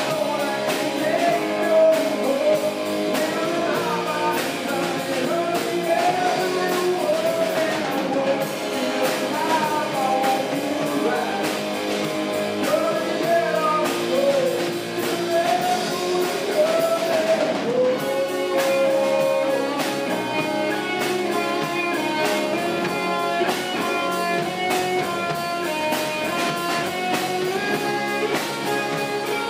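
Rock band playing live with drum kit, bass, electric and acoustic guitars. A sliding lead melody runs over the band for the first two-thirds, then gives way to steadier held notes.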